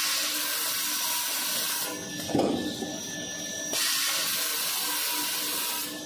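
Toilet-paper log saw machine running through its cutting cycle. A long hissing rush is followed, about two and a half seconds in, by a short loud swish as the blade cuts through the paper log, and then another long hiss, over a faint steady hum from the machine.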